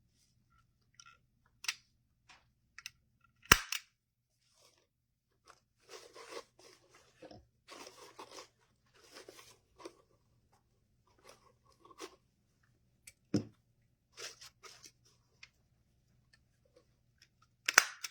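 Crinkling and rustling of ribbon being handled, with a few sharp clicks and snaps, the loudest about three and a half seconds in and another near the end.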